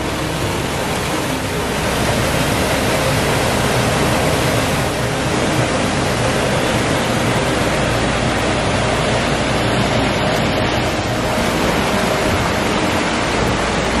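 Waterfall: creek water cascading over granite boulders, a steady loud rushing.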